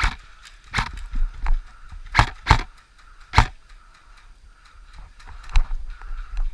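About six sharp cracks or knocks at irregular intervals over a steady low rumble.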